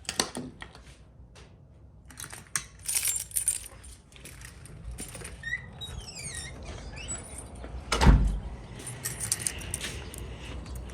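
A bunch of keys jangling in several short bursts. One heavy, deep thump about eight seconds in is the loudest sound.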